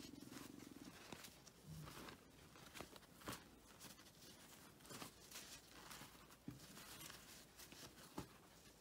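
Faint rustling and soft taps of paper napkins being handled and laid down on a pile, in scattered short sounds.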